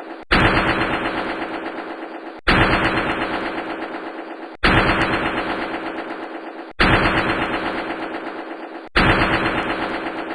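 A looped sound effect: a sudden loud start followed by a rapid rattle that fades over about two seconds, repeated five times at even spacing.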